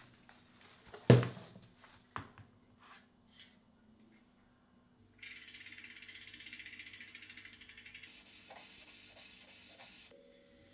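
A Shimano Dura-Ace rear hub's freehub ticking rapidly as the wheel spins, the pawls clicking in a fast even run that softens partway through and stops near the end. Before it, a few knocks, the loudest about a second in.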